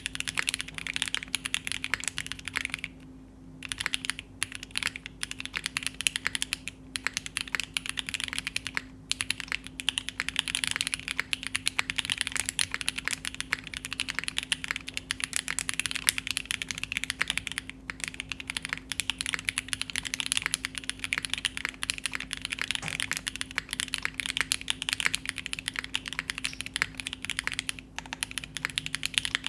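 Continuous fast typing on a Keycult No.2 65% mechanical keyboard with Krytox-lubed Tecsee Carrot switches, an aluminium plate and GMK keycaps. There is a short pause about three seconds in.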